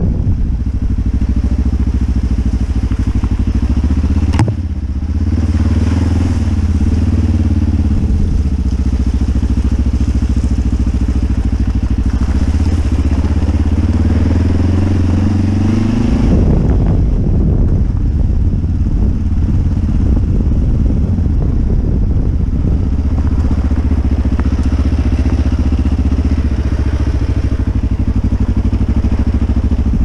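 Motorcycle engine running under way, its pitch rising and falling with the throttle, heard close from the rider's helmet. A sharp click comes about four seconds in, and the engine note changes at about sixteen seconds.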